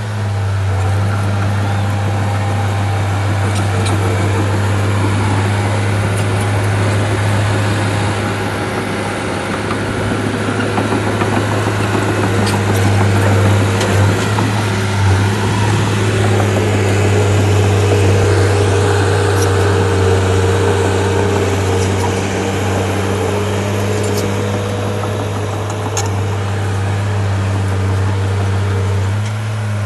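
Bulldozer's diesel engine running steadily, growing somewhat louder for a while in the middle, as if under load, with a few faint clicks.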